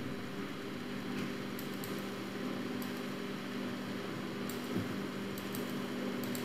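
Scattered faint clicks of computer keyboard keys and a mouse, some in quick clusters, over a steady low hum.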